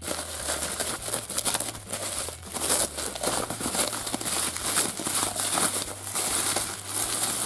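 Bubble wrap and clear plastic film crinkling and crackling as hands pull them off a wrapped bundle. It is a dense, continuous rustle of many small crackles.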